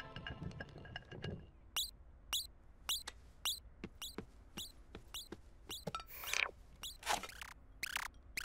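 Hard-soled shoes stepping on a wooden floor: sharp, evenly spaced clicks about two a second, with a brief swish about six seconds in.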